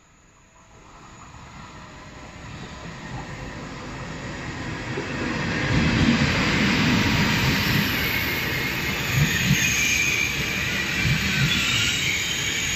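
Double-deck TGV high-speed train arriving at a station platform. Its rolling noise grows steadily louder as it approaches and is loudest from about halfway through as the carriages run past close by. A thin high squeal from the braking wheels comes in near the end.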